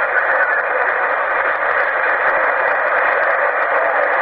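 CB radio receiver tuned to channel 11 (27.085 MHz) putting out a steady hiss of static through its speaker, with no one talking.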